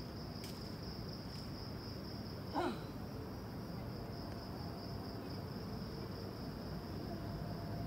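Steady high-pitched insect chorus over faint outdoor hiss, with one short call sliding down in pitch about two and a half seconds in.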